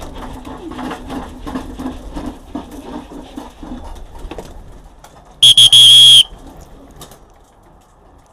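Racing pigeons cooing steadily, with light ticking as grain is poured into a metal feeding trough. About five and a half seconds in, a very loud high whistle sounds for under a second.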